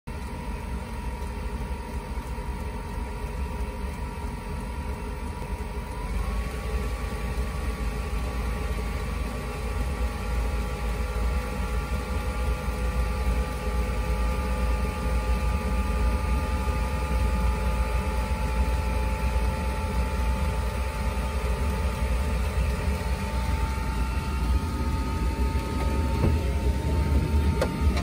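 Diesel air heater running in its start-up phase, a steady low rumble under the whine of its blower motor. About six seconds in the whine steps up in pitch as the fan speeds up, and the sound grows slowly louder. A couple of knocks near the end.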